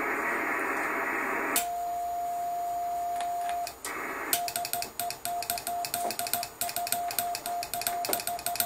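Amateur radio transceiver: receiver hiss, then a steady CW sidetone of about 700 Hz held key-down for about two seconds, then the same tone keyed in Morse code with sharp key clicks. Each tone is the transmitter keyed on during an on-air test through an amplifier into the antenna.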